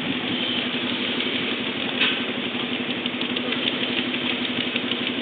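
An engine running steadily at idle: a constant hum with a fast, fine ticking over it. One louder knock comes about two seconds in.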